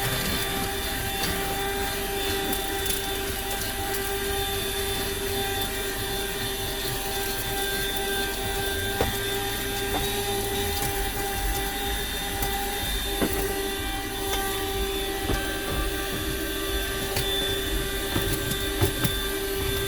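Buture corded handheld car vacuum running steadily with a constant whine, with a few sharp clicks scattered through.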